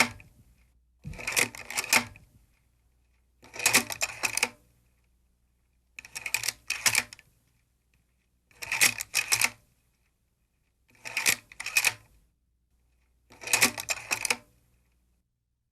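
Sound-effect bursts of rapid mechanical clicking, six in all, about two and a half seconds apart, with near silence between them.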